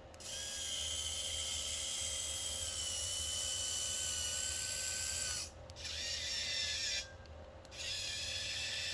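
Geared electric motor of a remote-controlled searchlight whirring steadily as it drives the light head. It stops briefly about five and a half seconds in, and again for most of a second about seven seconds in.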